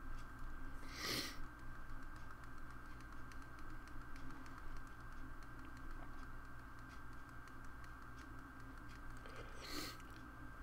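Faint scattered clicks and taps of computer input at a desk, over a steady electrical hum with a thin high whine. Two brief rushing noises come about a second in and near the end.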